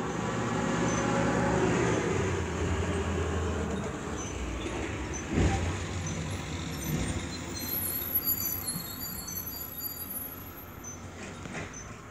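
UPS delivery truck driving past with its engine humming, then a sharp loud clunk about five seconds in and a few lighter bangs and rattles as it hits the bumps in the road.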